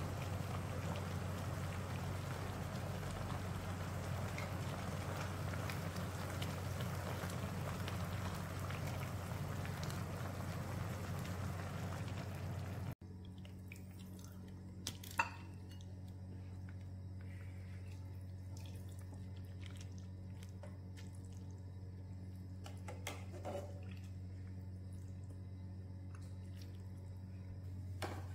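A stainless steel pot of fish and shrimp soup with greens at a hard boil, a steady rain-like bubbling hiss. After a cut about 13 seconds in it turns quieter: soup being ladled out and dripping, with one sharp knock soon after, all over a steady low hum.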